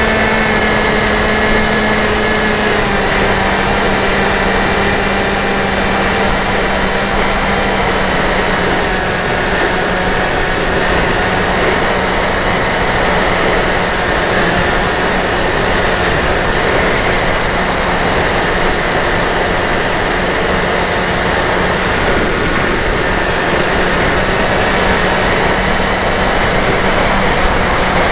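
Electric motor and propeller of a Dynam Hawk Sky RC plane running steadily in flight, a whine over rushing air, heard from on board. The pitch drops slightly about three seconds in as the throttle eases.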